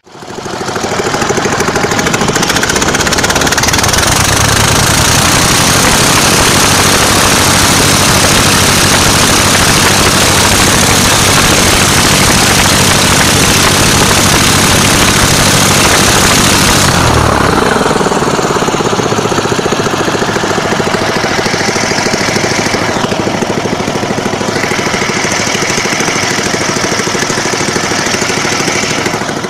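Lifan 20 hp aerosled engine driving its propeller at full throttle during a static thrust test, pulling about 80 kg on the scale. It comes up to a loud, steady run within the first seconds. About 17 seconds in, the engine note drops and the loud propeller and engine noise carries on in a changed pitch.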